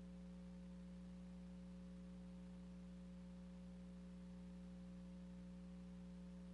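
Near silence with a faint, steady electrical hum; there is no helicopter sound.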